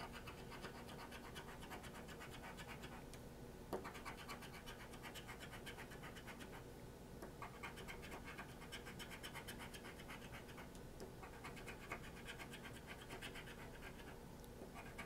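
A lottery scratch-off ticket being scratched in quick, rapid strokes. The scratching comes in several bouts of a few seconds each, with short pauses between them.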